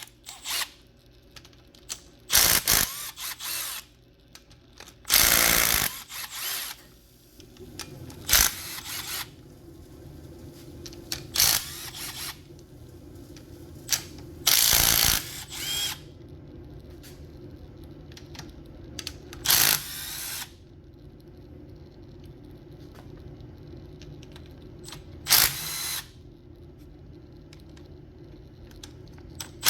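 Power driver spinning out 8 mm bolts in short bursts of up to a second and a half, about seven times, with pauses between.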